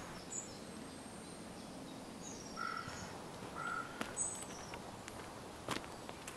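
Quiet outdoor background with a few faint bird calls: short high notes, and two brief lower calls around the middle. A couple of faint ticks come near the end.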